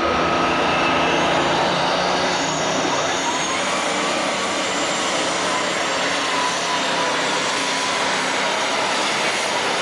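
International 1066 super stock pulling tractor's turbocharged diesel engine running flat out under full load while pulling the sled, a loud, steady noise with a whine that wavers slightly in pitch.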